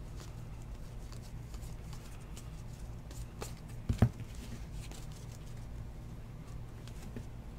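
Trading cards being handled: faint scattered clicks and slides as the stack is flipped through, then a sharp double thump about four seconds in as the stack is set down on the table, over a steady low hum.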